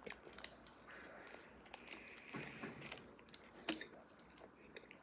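Faint chewing and wet mouth sounds of someone eating, with scattered small clicks and a sharper click a little after halfway.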